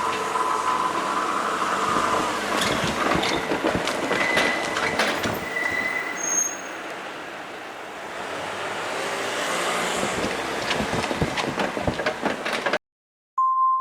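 Kintetsu electric train passing, its wheels clicking over the rail joints with short high wheel squeals. The sound cuts off abruptly near the end.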